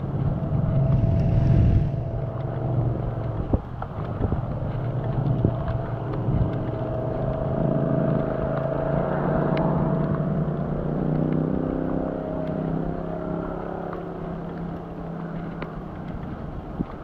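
Wind rushing over the microphone of a camera on a moving bicycle, with the steady drone of a motor vehicle's engine on the road that falls slightly in pitch in the second half.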